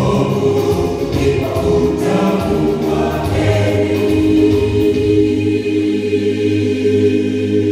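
Mixed gospel choir of men and women singing in harmony, settling into a long held chord about two-thirds of the way through.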